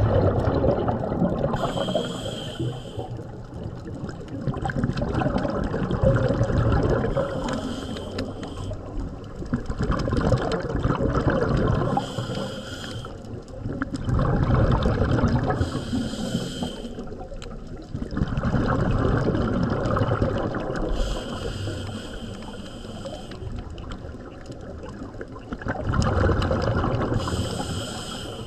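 Scuba diver breathing through a regulator underwater: a short high hiss on each inhalation alternates with a longer rumbling gush of exhaled bubbles, repeating roughly every five seconds.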